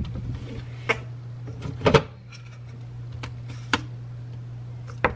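Jars and containers being handled at an open refrigerator: a few sharp clicks and knocks, the loudest about two seconds in, over a steady low hum.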